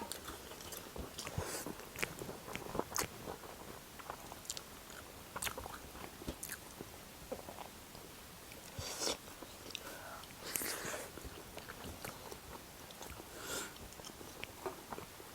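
Close-up eating sounds: fried chicken legs being bitten and chewed, with irregular crunches and wet clicks of the mouth and a few louder crunching bursts.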